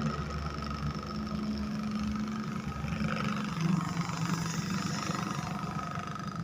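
Split air-conditioner indoor fan motor running unloaded with a steady hum and a rough, snoring growl ('ngorok') as the rotor wobbles. This is the sign of a bearing that has come loose inside the motor and a worn shaft.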